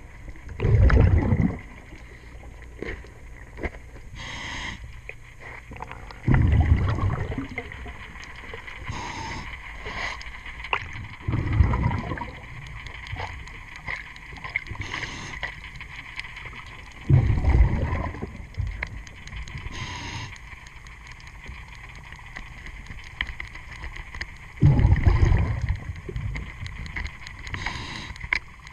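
Diver's scuba regulator underwater: a loud bubbling rush of exhaled air five times, about every five to six seconds, with a short hiss of the inhale between breaths. Small clicks come from the diver's tool working the hull's zinc anode.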